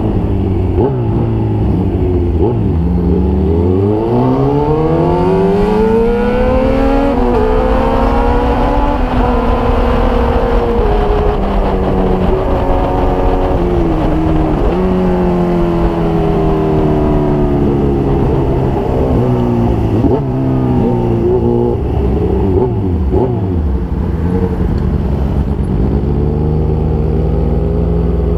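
Motorcycle engines riding in traffic. The engine note climbs for several seconds as it accelerates, then drops in steps at gear changes and falls away a couple of times as the bikes slow, settling into a lower steady run near the end.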